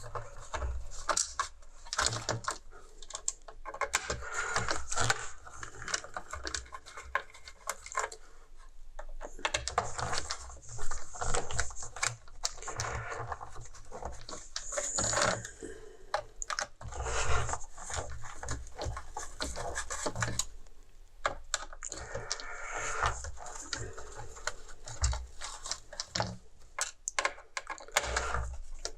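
Irregular clicking, tapping and scraping of a screwdriver and small plastic and metal parts as screws are backed out and pieces of a car heater's housing and circuit boards are handled, with a few louder knocks.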